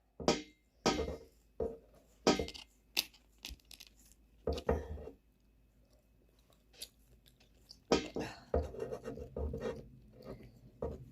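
Kitchen handling sounds: a series of irregular crunches, rustles and light clatters, as of packaging being torn and dishes being moved. They are busier near the end.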